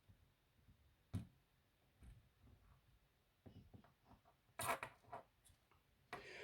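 Faint handling noises of small electronics repair work: a sharp click about a second in, then short scraping rustles near the end as thin battery wires and small tools are handled.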